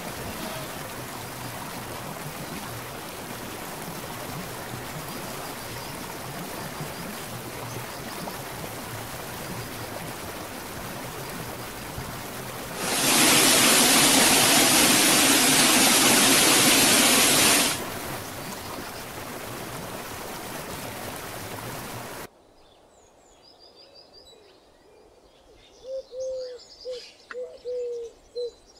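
A mountain stream rushing over rocks, a steady noise of running water. About 13 seconds in it cuts to the much louder splash of a waterfall falling close by for about five seconds, then back to the stream. A little after 22 seconds the water sound stops, leaving quiet woods with bird calls: high chirps and, near the end, a low call repeated several times.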